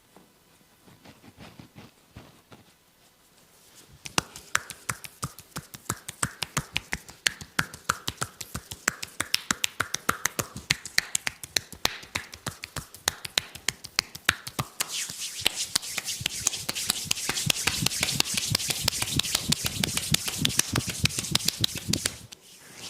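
Percussive massage: a barber's hands slapping and tapping rhythmically on skin, several sharp claps a second, starting about four seconds in. In the second half the strokes come faster and louder, with a rubbing hiss under them.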